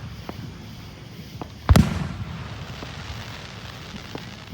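Fireworks going off: one loud bang about two seconds in, with a rolling rumble trailing after it, and several fainter pops from other fireworks before and after it.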